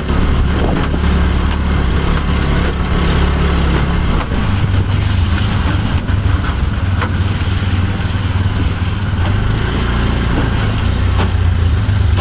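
Motor vehicle engine running steadily, its low note shifting about four seconds in, over a constant rushing noise.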